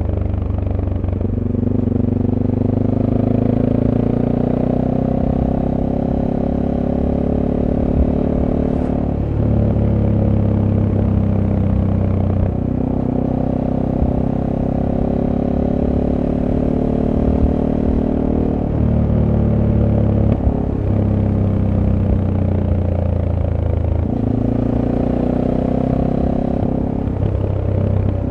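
Stock-exhaust SWM Super Dual T single-cylinder engine heard onboard while riding. Engine pitch climbs under acceleration and drops several times as the bike shifts gears and eases off through curves.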